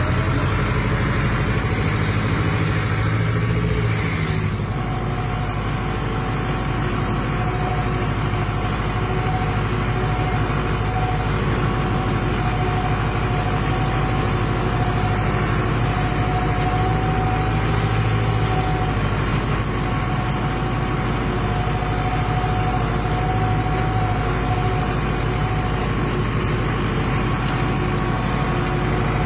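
Fiat 766 DT tractor's diesel engine running steadily, with a steady whine over the engine note.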